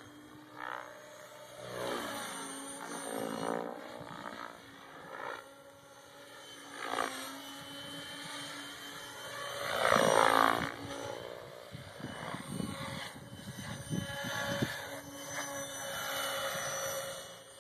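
Compass radio-controlled model helicopter flying fast passes, the whine of its rotor and motor sliding up and down in pitch as it swoops nearer and farther. It is loudest about ten seconds in, on a close pass.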